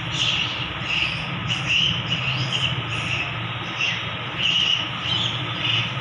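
A steady low background rumble with short, irregular scratchy strokes of a pen on paper.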